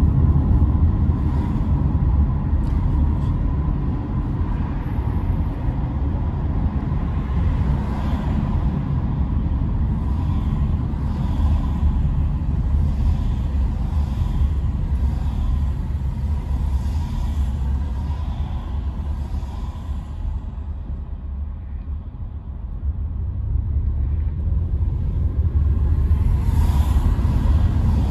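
Car in motion, heard from inside the cabin: a steady low rumble of road and engine noise. It drops for a few seconds past the middle, then builds again.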